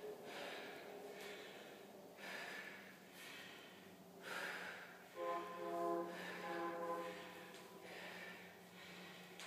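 A woman breathing hard through fast bodyweight squats, with a forceful breath roughly once a second. About halfway through, a held pitched sound comes twice, each lasting under a second; it is the loudest thing heard.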